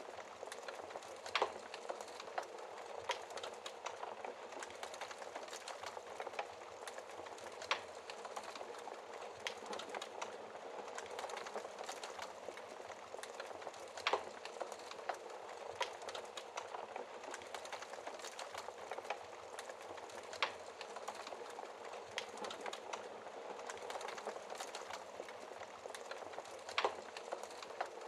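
Fire in a fireplace crackling steadily, with sharp pops every few seconds.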